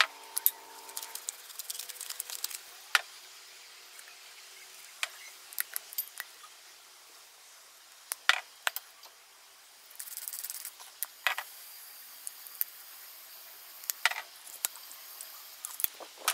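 Scattered sharp clicks and taps from spice containers being opened, shaken and set down while seasoning a salad, with a short hiss about ten seconds in.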